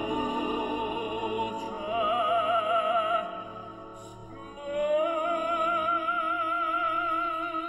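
Opera singing over orchestral accompaniment. A voice holds long notes with a wide vibrato, then glides up into a higher held note about five seconds in.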